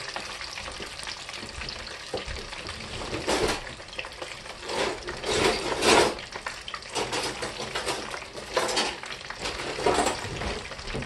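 Chicken wings coated in crushed Hot Cheetos deep frying in hot oil: a steady sizzle of bubbling oil that crackles louder several times.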